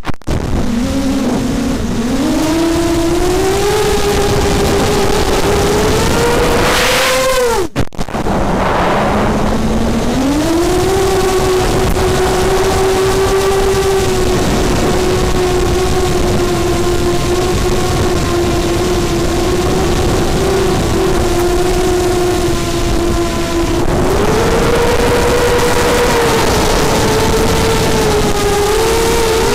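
Electric motor and propeller of an FPV aircraft, heard through its onboard camera: a steady whine whose pitch rises and falls with the throttle. It cuts out briefly about eight seconds in, then climbs back and holds, rising again near the end.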